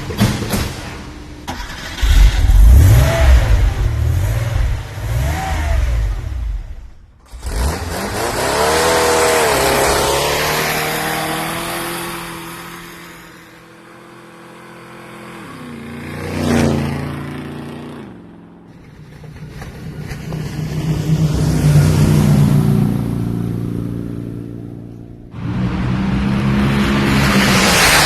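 Vehicle engines revving and passing, several in turn. Each one swells and fades with gliding pitch, and one change is abrupt, about three-quarters of the way through.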